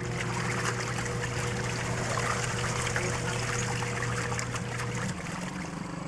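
Water running and splashing inside a washing machine, over a steady electrical hum from the machine that stops about five seconds in.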